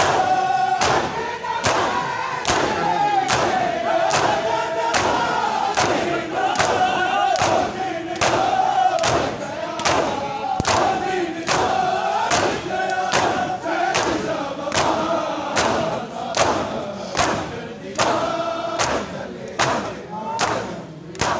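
Crowd of mourners doing matam, beating their chests in unison in a steady beat a little faster than once a second, while voices chant a lament over the strikes.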